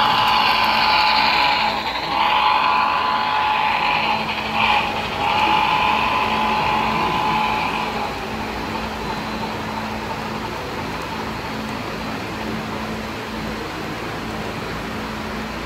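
Multi-tone horn of a sound-equipped HO scale model locomotive, blown as two long blasts, a short one and a long one, the grade-crossing pattern. After the horn stops, a steady low hum carries on.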